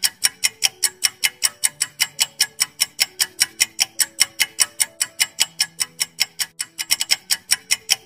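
Countdown-timer ticking sound effect: rapid, even clock-like ticks, about five a second, with a soft low melody of held notes underneath.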